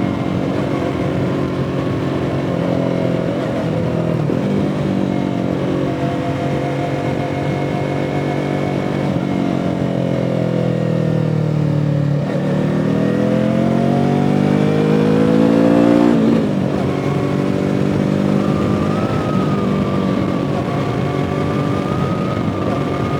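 2017 Yamaha R3's parallel-twin engine and exhaust under way. The engine note sinks as the bike slows, then rises for about four seconds as it accelerates, and drops suddenly with a gear change about sixteen seconds in.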